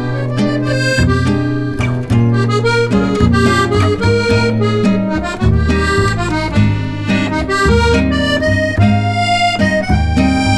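Background music: a reedy melody over plucked strings and a bass line, with a steady beat.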